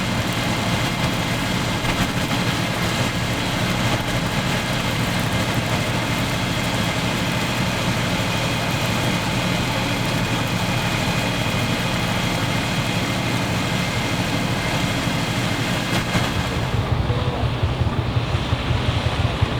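Air-cooled Deutz diesel tractor engine running steadily at working speed, with the steady whine of a Claas Super pull-type combine's machinery threshing wheat.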